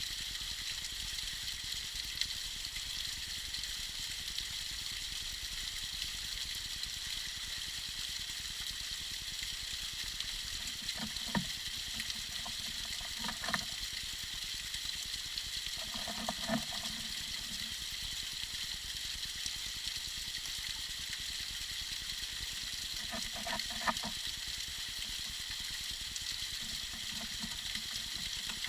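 Tiny icy waterfall trickling: a steady, high hiss of falling water, with a few short gurgles now and then.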